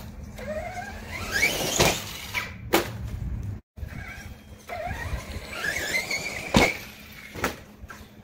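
Electric motor of a Redcat Landslide XTE RC truck whining as it accelerates, rising in pitch, twice. Each run ends in sharp knocks of the truck landing, the loudest about two-thirds of the way through.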